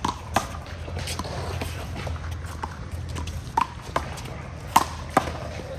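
One-wall handball rally: the small rubber ball smacked by hand and slapping off the wall and court, a string of sharp cracks at uneven intervals, the loudest about five seconds in, over a steady low background rumble.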